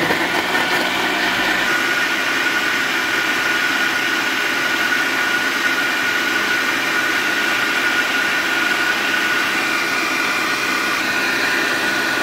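Philco countertop blender running at a steady speed, its motor whining as the blades blend milk, cupuaçu pulp and sugar into a thick smoothie.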